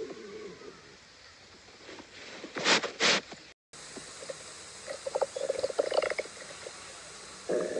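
A pet's stomach gurgling and rumbling in bubbly spurts. Two short, loud rushes of noise come around the third second and the sound cuts out for a moment, then the gurgling picks up again, strongest near the end.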